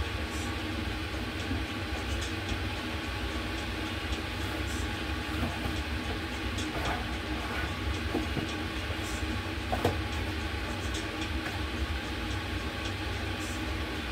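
Steady low mechanical rumble and hum, with a few light clinks and knocks of spice jars and cookware being handled; the sharpest knock comes about ten seconds in.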